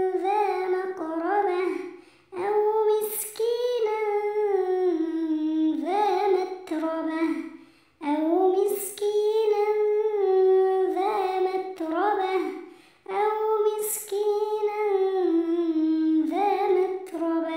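A child's voice chanting Quran recitation in melodic tajweed style. The notes are long and held and glide between pitches, in about four phrases with short breaths between them.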